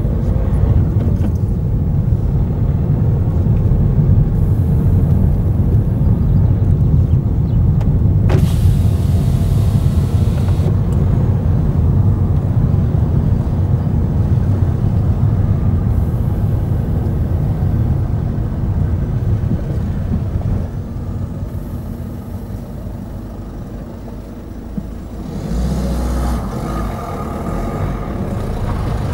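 Steady low rumble of a car driving along a lane, engine and tyre noise. It eases off about two-thirds of the way through as the car slows, with a short low thump near the end.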